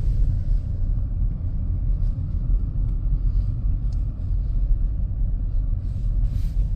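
Steady low rumble of a car's engine and tyres heard from inside the cabin while driving on snowy streets.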